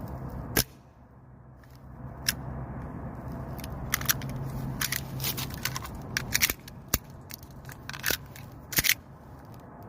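Gas blowback airsoft 1911 pistol fired up close, with sharp pops of shots and clicks of working the hammer and slide between them, about a dozen in all. The slide locks back after every shot, a fault that keeps the gun from cycling.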